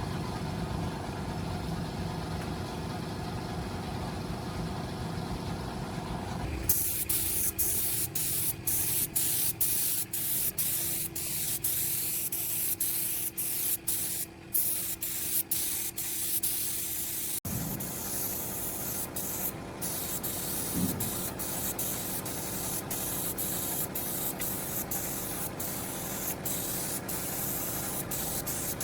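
A motorcycle engine runs at idle for the first six seconds or so. Then it gives way abruptly to a hissing spray that comes in quick on-off bursts, and after the middle it runs more steadily with short breaks.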